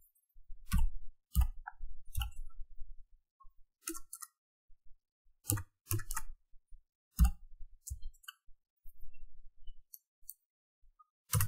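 About ten irregularly spaced clicks of a computer keyboard and mouse, some with a dull thud from the desk, as values are typed in and points are picked.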